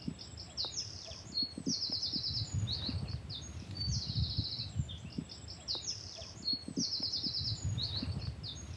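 Small songbirds singing: short high trills and quick chirps repeated every second or two. A low uneven rumble sits underneath.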